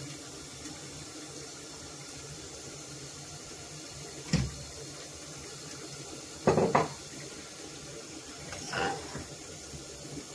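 Chicken simmering in its own juices in a non-stick wok, a steady bubbling hiss. A sharp knock about four seconds in and a louder double knock just after six seconds as roast potatoes are put into the pan, and a softer scrape near the end as a metal spatula stirs.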